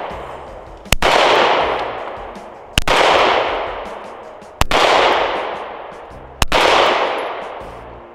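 Smith & Wesson M&P striker-fired pistol fired four times at an even, slow pace, about two seconds between shots. Each sharp report trails off over a second or more.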